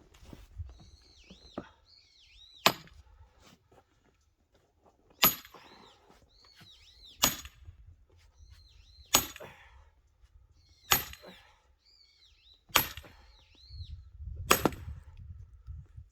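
Axe chopping wood: sharp strikes about every two seconds, each with a brief metallic ring. A small bird calls faintly with repeated chirps between the strikes.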